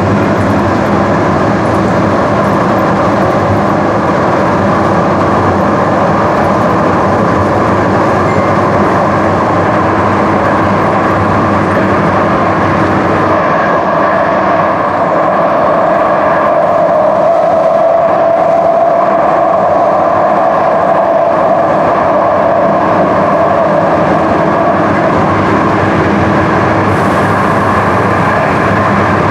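DART light rail train running along the line, heard from inside the car: a steady rumble of wheels on rail and running noise. About halfway through the low hum drops away and a mid-pitched tone appears, rises slightly, then fades.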